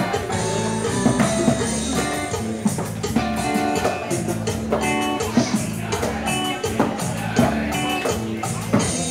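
Recorded grupera band song with guitar and a steady beat playing throughout.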